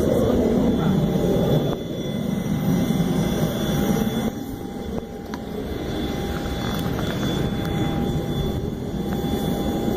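Business jet engines running, a steady low rumble that is loudest in the first couple of seconds and then eases off and holds.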